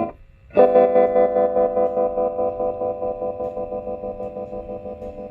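Electric guitar chord played through a 1960s Sano tube amplifier, struck once about half a second in and left to ring while it slowly fades. Its volume pulses evenly about four times a second, the amp's tremolo effect on this channel.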